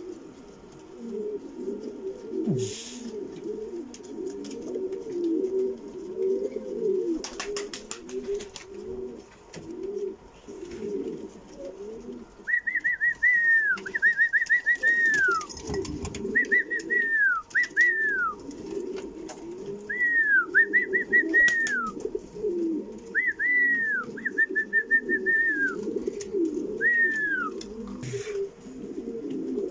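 Pigeons, Norwich Croppers, cooing continuously in many overlapping coos. From about halfway through, another bird adds a run of high whistled notes that arch and slur downward.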